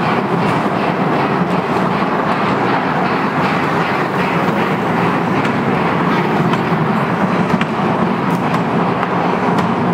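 Small electric ride-on train rolling on its track: a steady running and rumbling noise with scattered faint clicks, heard amid shopping-centre background noise.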